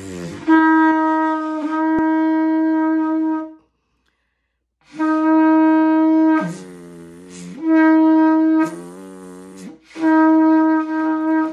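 Shofar blown in a long blast of about three seconds with a brief break partway through. After a pause of about a second and a half come further blasts that switch back and forth between a loud higher note and a quieter lower note.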